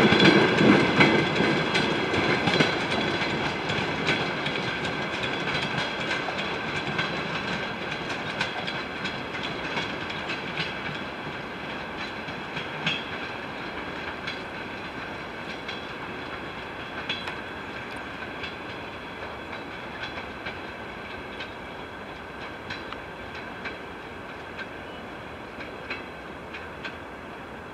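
Towed DR1A diesel-train cars rolling away along the track, wheels clicking over the rail joints with a thin high ringing, the sound fading steadily as the train recedes.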